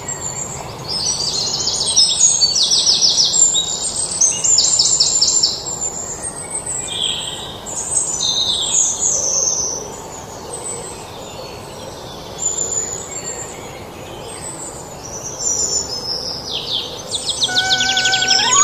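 Birds chirping: many short, rapid high trills repeating throughout. Near the end a few sustained musical notes begin, one stepping up in pitch.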